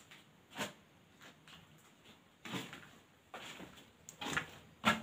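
A few faint, scattered knocks and scuffs from a person moving about and handling things in a small room. The loudest comes near the end.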